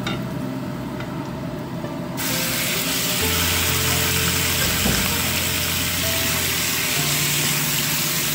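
Raw chicken pieces and chopped garlic sizzling in hot oil in a frying pan. The sizzle jumps much louder about two seconds in, as the chicken goes into the oil, and then stays steady.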